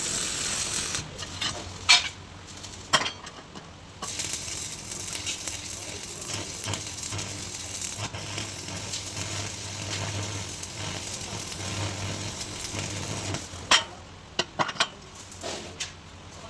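Electric arc welding crackling and sizzling steadily for about ten seconds, with a few sharp metallic taps before it starts and after it stops.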